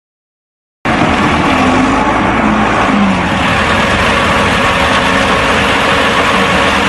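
Diesel concrete pump with a Deutz engine running steadily, a loud, even mechanical din that cuts in abruptly about a second in.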